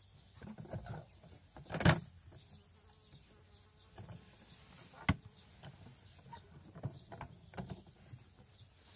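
Knocks, clicks and hay rustling from a homemade chipboard hay press being worked by hand with its lever: one loud knock about two seconds in, a sharp click about five seconds in, and smaller knocks and rustles between.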